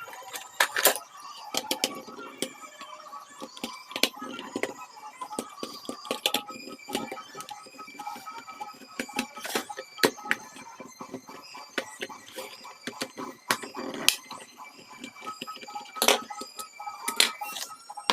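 Irregular sharp clicks and taps, some loud and some in quick runs, over faint steady tones.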